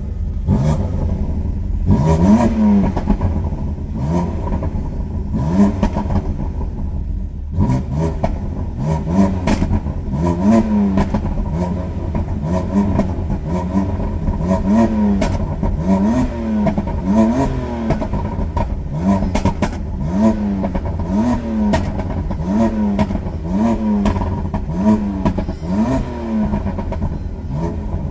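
Car engine being revved over and over in quick blips, about one every second or so, each rise in pitch followed by a fall back toward idle, with sharp cracks scattered through.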